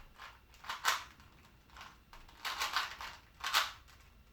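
Rubik's cube being turned quickly by hand: bursts of plastic clicking and clacking, one about a second in and a longer run of turns near the end.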